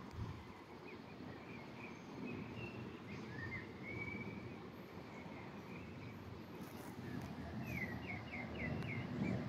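Songbirds chirping and whistling, with a quick run of four or five falling notes near the end, over a steady low rumble.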